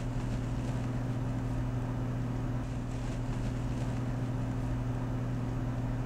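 A steady low hum with an even background hiss, unchanging throughout.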